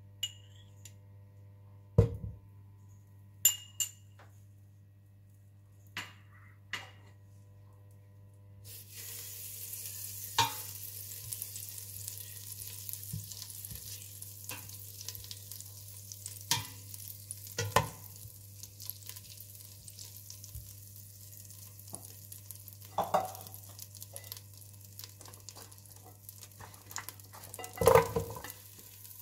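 A few clicks and knocks over a low steady hum, then, about a third of the way in, butter starts sizzling with a steady hiss in a hot stainless steel pot as a spatula pushes it around, tapping the pot now and then. Near the end, pieces of chopped carrot and vegetable drop into the sizzling butter with a short run of knocks.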